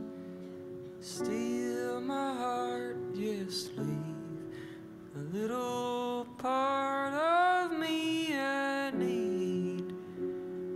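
A man singing live into a microphone, accompanied by sustained chords on an upright piano. The long sung notes slide in pitch, swelling and rising to the loudest point a little past the middle.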